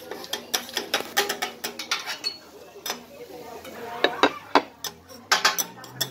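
Metal spatulas clacking and scraping on a steel teppanyaki griddle: a quick run of sharp clicks that thins out for a second or so in the middle, then picks up again with a few louder clacks.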